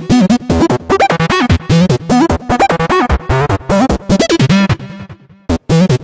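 Outro music, choppy with rapid stops and starts, dropping away briefly about five seconds in before it comes back.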